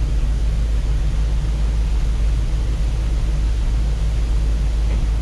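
Ford F800 grain truck's engine running steadily, heard from inside the cab as a low, even rumble.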